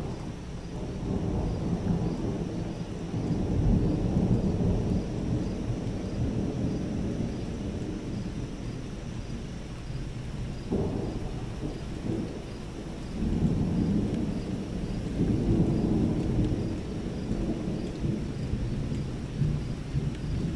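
Thunder rumbling low and deep in long rolling waves. One peal swells at the start, another comes in more sharply about eleven seconds in, and a further long swell follows a few seconds later.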